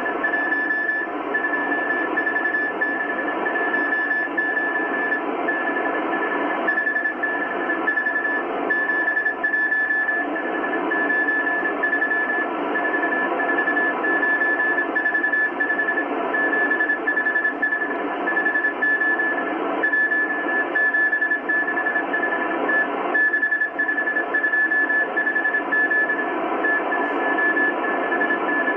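Morse code from the M12 Russian spy station on 14951 kHz, played through a Kenwood R-1000 shortwave receiver: a single tone keyed on and off in dots and dashes over a steady shortwave hiss.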